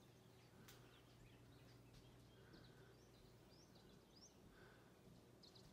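Near silence with a few faint, short bird chirps and a low steady hum.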